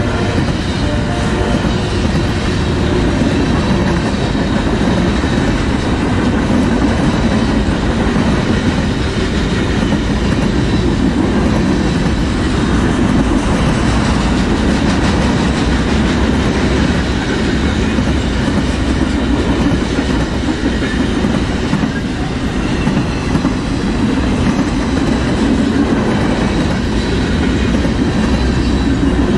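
Freight train flatcars loaded with military vehicles rolling past close by: a steady, loud noise of steel wheels running on the rails.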